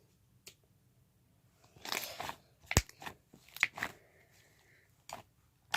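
Homemade borax-activated slime being squished and pressed in the hands. A short crunchy smear comes about two seconds in, then a scatter of sharp clicks and pops. The loudest pop comes near the middle.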